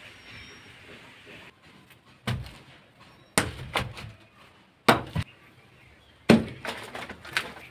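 A run of sharp wooden and metal knocks and clunks, about ten in five seconds in small clusters, as dry bamboo sticks are dropped on bare ground and a black iron wok is set down.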